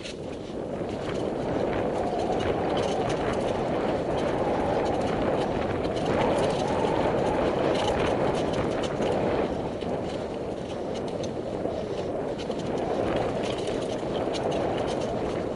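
Mountain bike riding fast down a dirt trail: a steady rush of tyre and rolling noise with the bike's chain and frame rattling in quick irregular clicks over the bumps.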